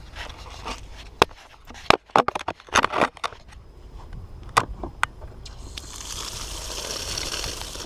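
A run of sharp clicks and knocks, like hard parts being handled, then a steady hiss that builds from about six seconds in.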